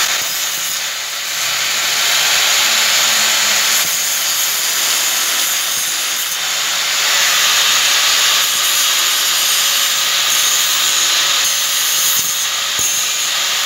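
Handheld angle grinder running steadily with a faint motor whine, its disc grinding a chrome grille trim strip to shape it; the grinding noise swells and eases slightly as the piece is pressed to the disc.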